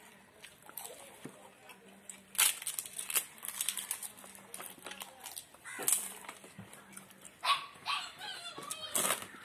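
Crisp papad (poppadom) being bitten and crunched close to the microphone, with several loud, sharp crunches and chewing between them. A few short pitched whining sounds come in about three-quarters of the way through.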